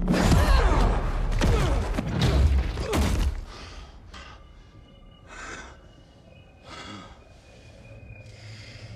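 Film sound design of a man hurled against a wall: for the first three and a half seconds there is a loud rushing crash with heavy thuds and a deep rumble. After that, short pained gasps and breaths come a few times as he lies on the floor and pushes himself up.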